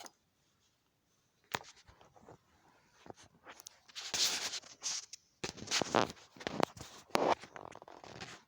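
Handling noise: scattered clicks and knocks with bursts of rustling and scraping, as objects are picked up and moved about.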